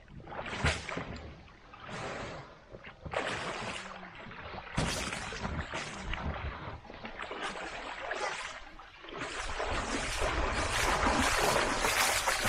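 Shallow water sloshing and splashing in irregular bursts as a person moves about in the shallows handling an inflatable boat, then a steadier run of splashing footsteps as they wade toward shore near the end.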